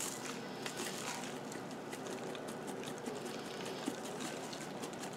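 Grated Parmesan shaken from a plastic shaker canister into a plastic measuring cup: a faint, steady patter of small ticks as the canister is shaken and the cheese falls. The cheese is clumpy and comes slowly through the lid's large holes.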